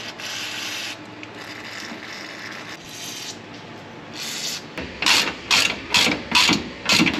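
Hand socket ratchet being worked on the leaf-spring bolts. A few short rasping bursts give way, about two-thirds of the way in, to quicker rhythmic strokes, about three a second.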